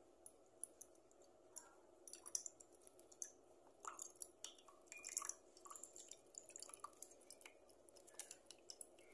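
Faint trickle and drips of apple cider vinegar poured from a bottle into a glass measuring beaker, with scattered small clicks and clinks.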